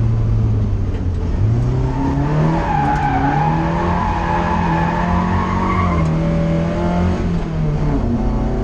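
Inside the car: a SEAT 1430's engine is driven hard. Its note dips about a second in, then climbs as it pulls, falls back around the seventh second and picks up again near the end. A high squeal rises over the middle seconds.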